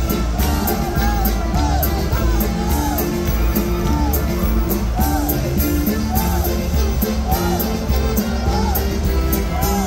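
A peña brass band playing a tune over a bass drum and a steady cymbal beat, while a stadium crowd sings and yells along.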